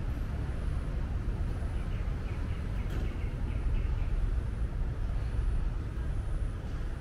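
Steady low rumble of road traffic on a city street. About two seconds in comes a brief run of quick, high-pitched chirps.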